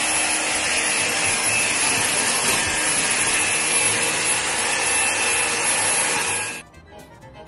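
Upright vacuum cleaner running steadily, a high whine over rushing air, while it is pushed across a wooden floor; it cuts off suddenly near the end.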